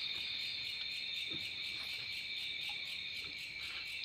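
Night insects chirring steadily, a high, continuous, evenly pulsing drone.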